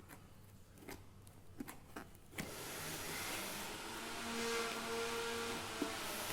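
A few sharp clicks as scissors cut and hands work at the phone box's packaging. About two and a half seconds in, a louder steady rushing noise with a low hum starts suddenly and keeps going.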